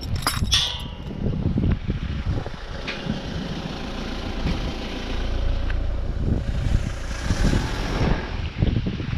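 Low, uneven rumble of a vehicle on the move. The noise swells louder for about a second between seven and eight seconds in.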